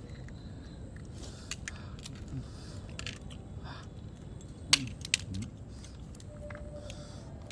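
Eating grilled clams: chewing and crunching with scattered small clicks of shells, the sharpest click about four and a half seconds in. A few short, low murmurs come between bites.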